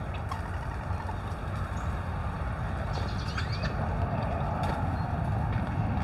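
Outdoor ambience: a steady low rumble, with a few faint, short bird chirps about three seconds in.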